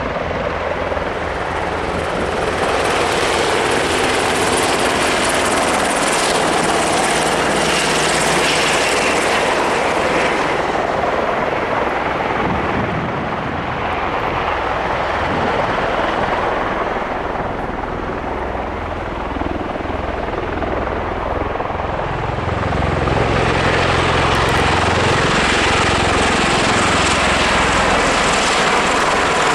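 VH-60N helicopters and MV-22 Osprey tiltrotors taking off and flying over: a loud, continuous rush of rotor and turbine noise. It eases in the middle and grows louder again in the last third as an Osprey passes close overhead.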